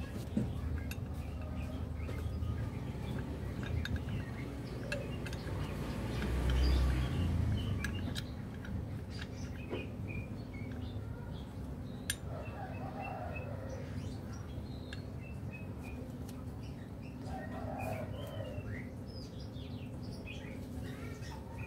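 Small birds chirping in short scattered calls over a steady low background hum, with a few sharp clicks and a louder low rumble swelling about six to eight seconds in.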